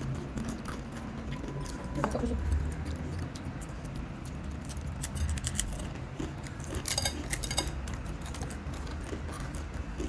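Crunching and chewing of crispy ghost-pepper Mamee Monster dry instant-noodle snack, irregular sharp crunches with a thicker cluster about seven seconds in.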